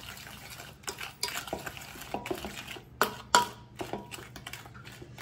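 A spoon stirring a thick gram flour, sugar and milk batter in a bowl, scraping and clinking against its side, with two louder knocks about three seconds in.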